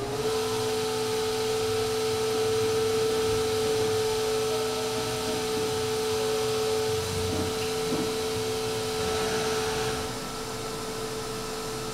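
Small electric cooling fan running with a steady whirring whine.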